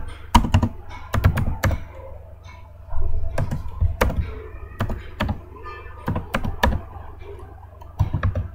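Typing on a computer keyboard: sharp key clicks in short, irregular runs with brief pauses, over a low steady hum.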